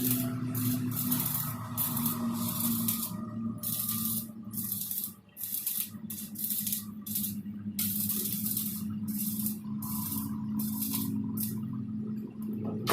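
Arc welding: a hissing crackle in short runs of under a second, stopping and starting about a dozen times, over a steady low hum.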